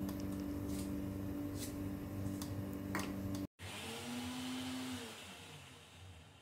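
Electric mixer grinder running steadily, puréeing fresh tomato in its small steel jar. After a brief cut it runs again, then slows and fades near the end.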